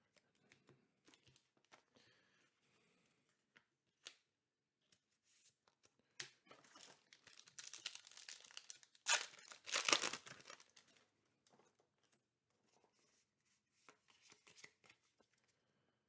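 A MetaZoo Nightfall booster pack's foil wrapper being torn open and crinkled, loudest about nine to ten seconds in, with faint handling of trading cards before and after.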